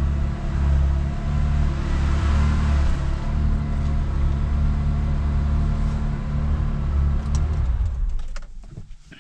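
1973.5 Porsche 911T's air-cooled flat-six idling steadily on a slightly raised hand throttle while cold, heard from inside the cabin. About eight seconds in the engine is switched off and the sound stops, followed by a few light clicks.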